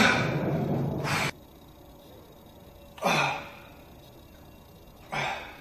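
A weightlifter's forceful breathing while lifting a barbell. Heavy breathing cuts off abruptly just over a second in, then come two short, sharp exhales about two seconds apart with the stiff-leg deadlift reps.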